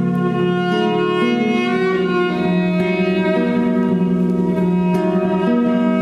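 Violin playing long bowed notes that change pitch every second or so, over classical guitar accompaniment.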